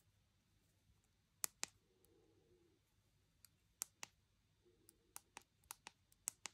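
Side buttons on a Google Pixel 6 pressed and released, giving a series of sharp, short clicks, mostly in quick pairs. The clicks start about a second and a half in and come faster near the end.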